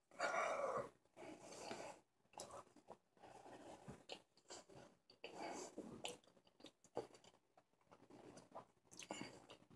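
Faint chewing of a mouthful of solid chocolate, with soft irregular mouth clicks and smacks. A louder breathy sound comes in the first second.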